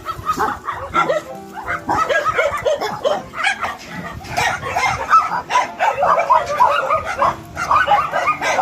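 A pack of dogs barking and yipping at once, many voices overlapping, getting busier and louder from about halfway through. Background music with steady low tones runs underneath.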